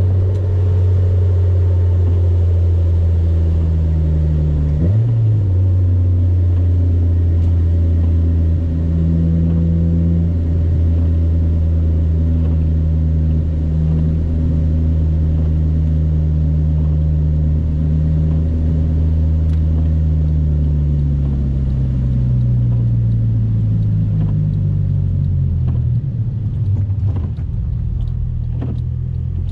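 Honda Civic EK coupe driving at steady revs, a low engine and road drone. About five seconds in the pitch jumps briefly, and from about twenty seconds it falls gradually as the car slows, with a few faint ticks near the end.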